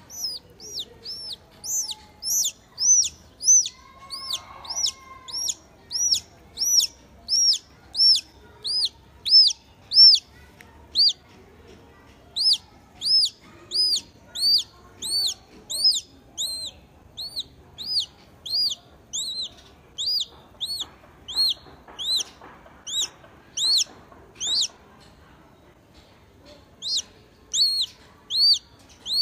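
Newly hatched chick peeping: high-pitched peeps, about two a second, each a quick rise and fall, with short pauses about eleven seconds in and again near the end.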